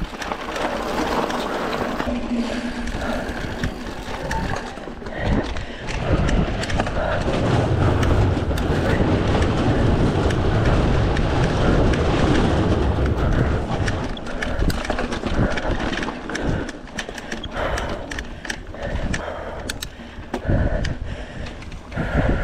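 Mountain bike ridden fast over a dirt trail, heard from a handlebar-mounted camera: tyres rolling and the bike rattling over bumps, with wind on the microphone. A heavy low rumble builds through the middle, and sharp rattles and knocks come more often in the second half.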